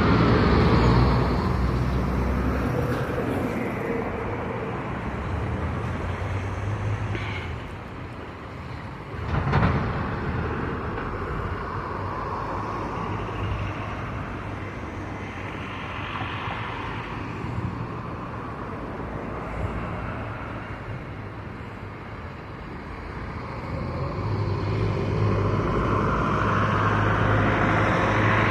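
Road traffic: a continuous wash of engine and tyre noise that swells and fades as vehicles pass, with a low engine hum strongest at the start and over the last few seconds. A single sharp knock about nine and a half seconds in.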